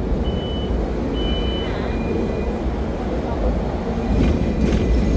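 Hong Kong double-decker tram running along its street tracks, a steady low rumble of the car and wheels on the rails, with two short high beeps in the first two seconds.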